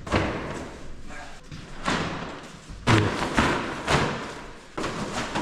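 About five dull thumps and bangs, roughly a second apart, ringing on in the echo of a large bare room; the loudest comes about three seconds in.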